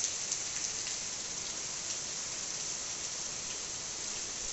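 Heavy rain falling steadily on trees and garden ground: an even hiss with scattered sharper drop ticks.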